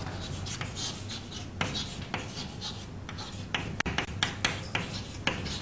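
Chalk writing on a chalkboard: short scratching and tapping strokes in an uneven rhythm as words are written out.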